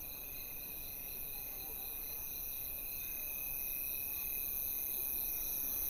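Crickets chirping in a steady high trill, slowly growing louder.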